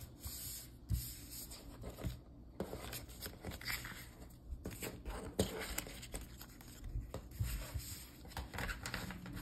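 Planner sticker sheets being slid across a tabletop and gathered into a stack: light paper scraping and rustling with scattered small taps.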